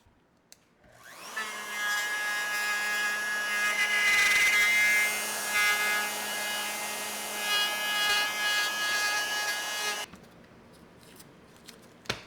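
Electric wood router spinning up with a quick rising whine, then cutting into sycamore to rout a body cavity, a steady high whine with rough cutting noise on top. It stops suddenly about ten seconds in, and a single click follows near the end.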